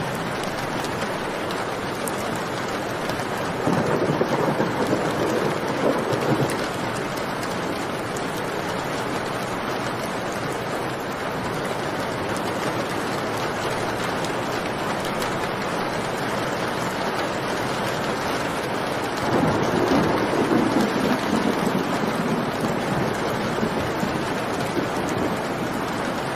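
Steady heavy rain with two rolls of thunder, one a few seconds in and another about two-thirds of the way through, each rumbling for about three seconds.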